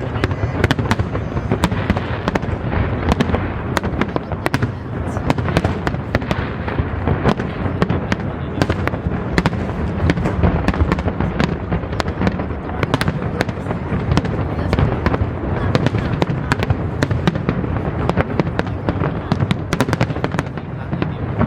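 Aerial fireworks in a dense, continuous barrage: a constant deep booming of shell bursts with many sharp cracks and crackles layered over it, without a break.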